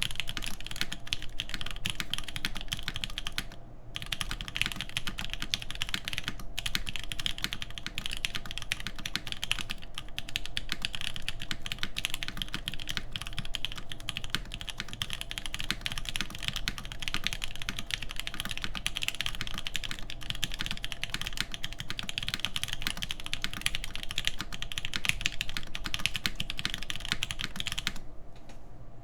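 Fast, continuous typing on a Perry IU TKL mechanical keyboard with lubed 43studio Popu switches, a full aluminium plate and GMK keycaps. The stream of keystrokes breaks off briefly about three and a half seconds in and again just before the end.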